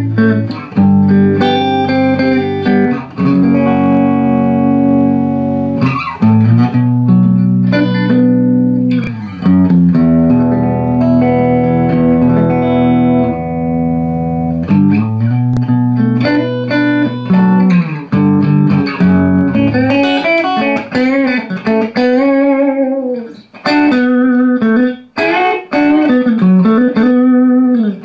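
Telecaster-style electric guitar played through a small Class A tube amplifier with a warm, round tone: held chords and single-note lines, with string bends in the second half.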